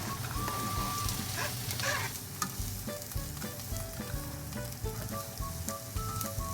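Food sizzling as it fries in a pan, with a few sharp clicks between about one and a half and two and a half seconds in. A light background music tune plays along.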